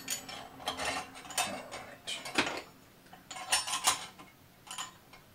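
Small metal parts clicking and clinking as a diamond-tip saw blade and its washer and nut are fitted onto the motor shaft of a small 4-inch table saw: a run of short, sharp clinks, loudest around three and a half seconds in, thinning out near the end.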